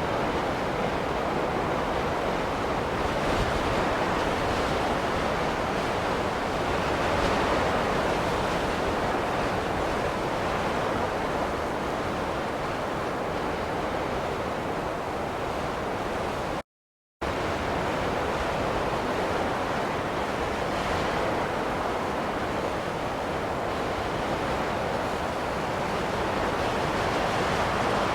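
Steady snowstorm wind ambience, a continuous rushing noise that swells and eases slowly. It cuts out completely for about half a second a little past halfway, then resumes unchanged.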